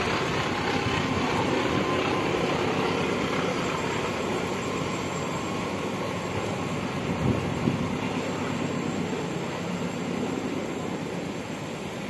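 Passenger train rumbling along the rails as it moves away, the sound slowly fading, with two brief knocks about seven seconds in.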